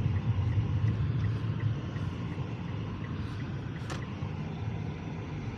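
Steady low rumble of a car heard from inside its cabin, with a faint quick ticking of about three a second and a single sharp click about four seconds in.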